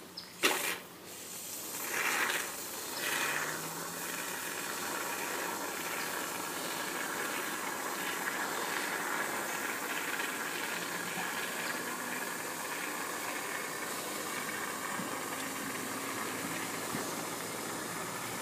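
Aerosol can of expanding spray-foam sealant hissing as it lays a bead of foam around the base of a plastic septic riser, sealing the joint. A sharp click comes about half a second in, then two short louder spurts, then a steady hiss.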